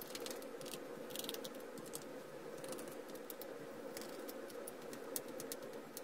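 Light, scattered clicks and ticks of small hard objects being handled on a desk, over a faint steady hum.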